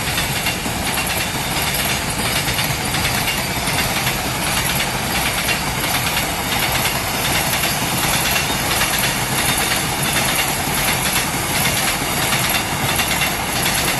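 Container wagons of a freight train passing at full speed: a steady rumble and clatter of steel wheels on the rails.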